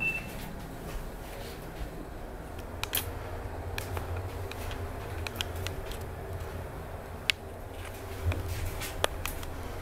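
Inside a Hitachi Urban Ace rope-traction elevator car: a short beep as the floor button is pressed, then a low, steady hum as the car starts and runs downward, with scattered small clicks and taps.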